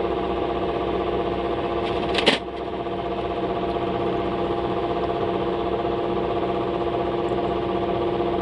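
A small motor hums steadily, with a steady whine in it, and one short sharp crackle about two seconds in.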